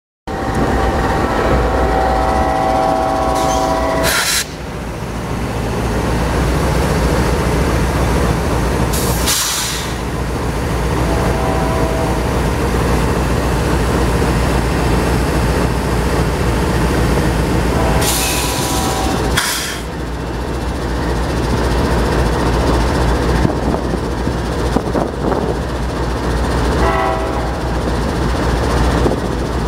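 A GE AC44C6M diesel-electric locomotive idling close by with a steady low rumble, while a train horn sounds several times, with long blasts at the start and near twenty seconds in. A few short hisses cut through now and then.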